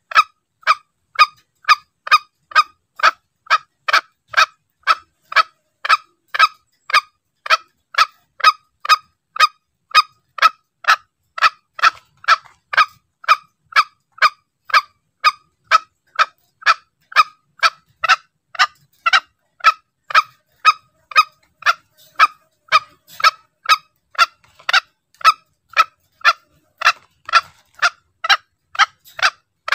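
Green junglefowl calls played as a hunting lure: short, sharp calls repeated steadily about twice a second.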